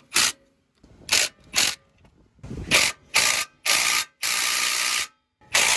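A ratchet wrench worked on bolts in quick short bursts, then in a few steadier runs of about a second each.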